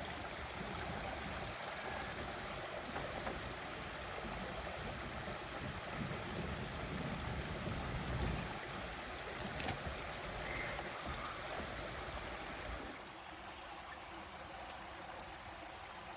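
Shallow rocky creek running and splashing over stones. About thirteen seconds in, the water sound drops to a quieter hush.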